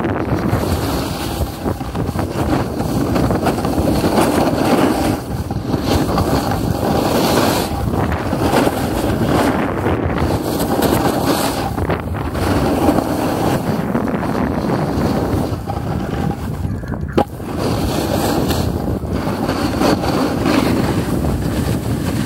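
Wind buffeting the camera microphone during a fast downhill ski run, mixed with the hiss and scrape of sliding over groomed snow, swelling and easing every few seconds. A single sharp knock comes about seventeen seconds in.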